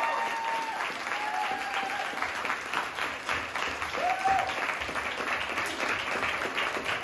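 A small audience applauding, steady clapping throughout.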